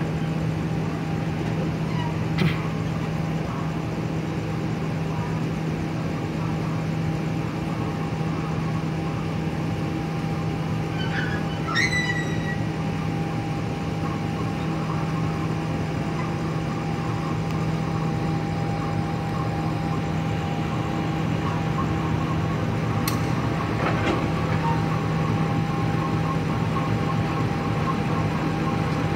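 Passenger train being pushed slowly backwards past at shunting speed: a steady low diesel hum over the rolling of the coaches' wheels. Two sharp clanks come about two seconds in and again near the end, and a brief high squeal comes about twelve seconds in.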